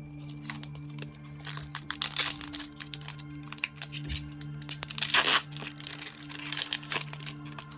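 Foil booster-pack wrappers crinkling and tearing as trading card packs are handled and opened, in irregular crackles, densest about two and five seconds in, over a steady low hum.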